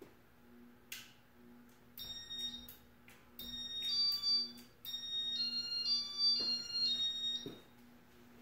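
Casablanca Panama 5 ceiling fan's electronic control beeping as demo mode starts: a quick run of high electronic beeps at changing pitches, like a short tune, from about two seconds in until near the end. A click comes about a second in, and a steady low hum runs underneath.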